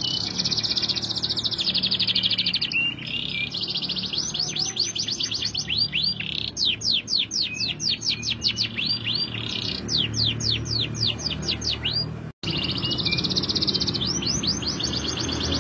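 Yellow domestic canary singing. It gives fast high trills, then a run of quick down-sweeping whistled notes, and goes back to trilling after a brief break about twelve seconds in.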